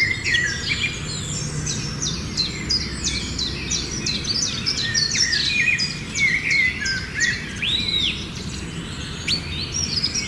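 Many small birds chirping and calling at once, a dense run of short, overlapping high chirps and quick pitch sweeps, over a steady low background noise.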